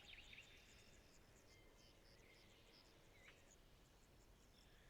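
Faint forest ambience with distant birdsong: a few brief chirping calls near the start and one about three seconds in, over a run of high, evenly repeated tiny chirps.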